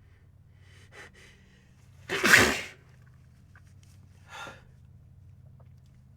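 A person sneezing once, loudly, a little over two seconds in. Quieter, short breath sounds come about a second before it and about two seconds after it.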